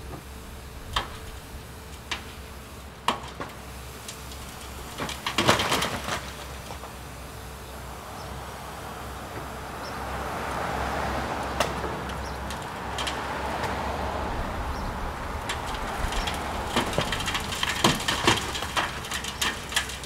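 Building demolition by heavy machinery: sharp knocks and cracks of brick and wood being broken and dropped, with a dense cluster about five seconds in and another run near the end, over a steady low machine rumble. A rushing noise swells through the second half.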